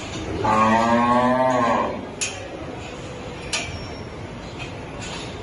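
A cow moos once, a single call of about a second and a half that rises a little and falls away. A few light clicks follow.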